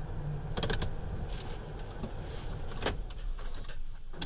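Automatic brush car wash heard from inside the car: a steady low rumble, with a few sharp clicks, once under a second in, once near three seconds and once at the very end.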